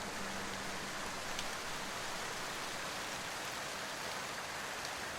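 Steady rain falling: an even hiss with a few separate drop ticks. A held background-music note fades out in the first second.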